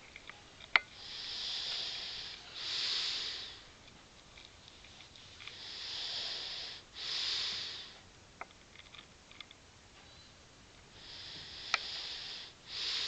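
A young boy's snoring while asleep: three slow, breathy breaths, each an in-breath and an out-breath heard as a hiss with a short gap between them. A few short, sharp clicks fall between the breaths; the loudest comes about a second in.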